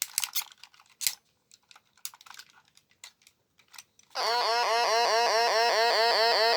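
Light plastic clicks of a toy being handled. Then, about four seconds in, the electronic sound effect of a Transformers G1 Galvatron toy's cannon switches on: a loud, steady warbling tone that pulses about six times a second.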